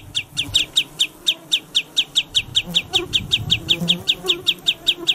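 A wader calling a fast, steady string of short, high notes that each slur downward, about seven a second without a break: the insistent repeated calling of a shorebird near its nest.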